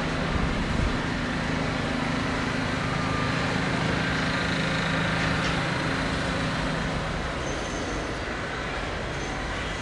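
City street traffic noise, with a heavy road vehicle's engine, such as a bus or truck, running steadily for about the first seven seconds before it fades.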